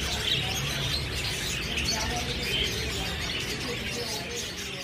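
Many small birds chirping together in a dense, continuous chatter, over a steady low rumble.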